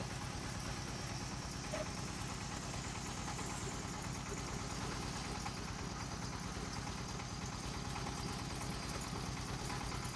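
Floating fish-feed pellet extruder machine running steadily, its drive engine making an even low pulse.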